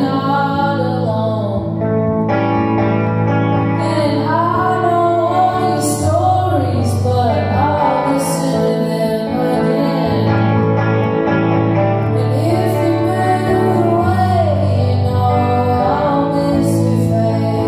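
Live solo performance of a woman singing long, sliding notes over a clean electric guitar ringing out sustained chords, with a low bass note that comes and goes in a steady pattern.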